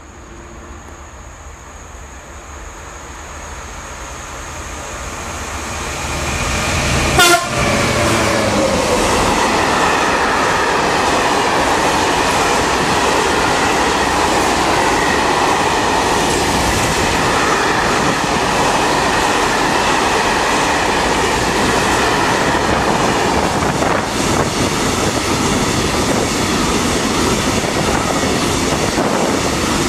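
Freight train of covered hopper wagons approaching and passing at speed: the rolling noise grows over the first seven seconds, a short horn blast sounds about seven seconds in as the locomotive goes by, then the wagons roll past with a loud, steady rush and clatter of wheels on rails.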